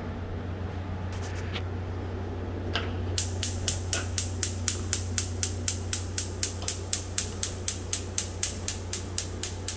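Gas range's spark igniter clicking rapidly, about four clicks a second, as the top burners are turned on and light. The clicking starts about three seconds in, after a couple of single clicks.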